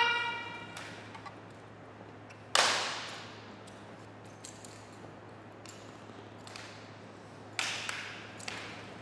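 The drawn-out end of a shouted drill command, then sharp slaps and clicks from the color guard's drill rifles being handled, echoing in a gymnasium. One loud crack comes about two and a half seconds in, a few faint clicks follow, and two more sharp slaps come near the end.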